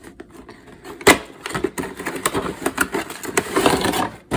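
Hands handling a boxed action figure and its packaging: a run of quick clicks and taps, one sharp click about a second in, and crinkly rustling that builds near the end.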